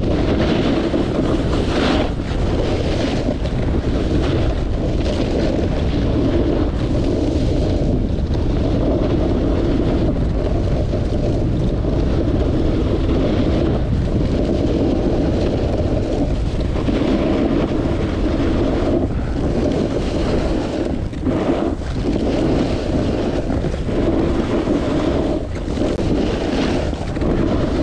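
Wind rushing over an action camera's microphone while riding downhill, mixed with the hiss of a snowboard sliding over packed snow, and a louder scrape of the board on the snow every second or two.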